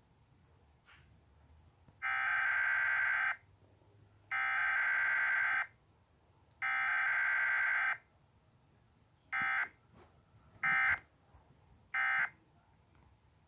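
Emergency Alert System data bursts, a homemade fake EAS test. Three buzzy digital tones, each a bit over a second long, come about a second apart; then three short blips follow, the pattern of an EAS header sent three times and the end-of-message code sent three times.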